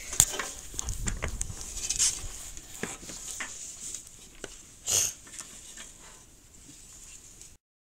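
Cloth rustling against the phone's microphone, with scattered clicks and knocks from hands and rope working at a metal balcony railing; the sound cuts off abruptly near the end.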